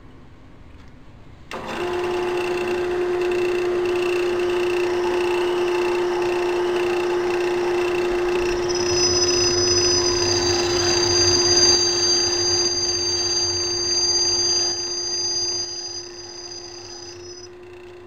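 A small metal lathe switches on about a second and a half in and runs with a steady hum, while a twist drill held in the tailstock chuck bores deeper into a brass tube spinning in the three-jaw chuck. About halfway through, a high-pitched squeal from the bit cutting the brass comes in and stops shortly before the end.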